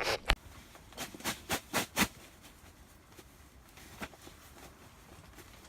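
A quick run of short, sharp clicks and knocks over the first two seconds, then one more about four seconds in: handling noise from gear being moved.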